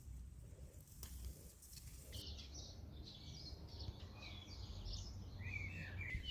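Small birds chirping faintly outdoors in a quick string of short, high chirps and warbles that begins about two seconds in, over a low steady background rumble.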